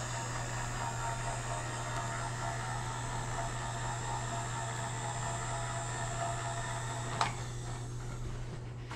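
Lagun milling machine's table power feed running at full rapid traverse: a steady electric motor hum and whine with a single click about seven seconds in.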